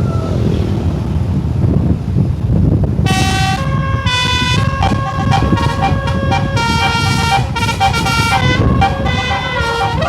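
Bus telolet horn, a multi-tone musical air horn, playing a quick tune of stepped notes that starts about three seconds in. A low rumble of engine and road noise runs under it.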